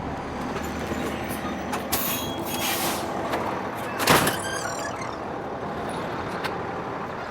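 Fire truck engine running, with a short hiss of air brakes about two seconds in and a brief loud burst of sound about four seconds in.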